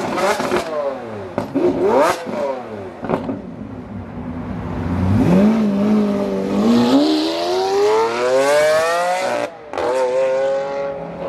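Liberty Walk widebody Lamborghini Aventador's V12 giving a few sharp throttle blips, then pulling away in a long rising rev. Near the end the sound cuts out briefly and comes back lower in pitch as the car shifts up, then climbs again.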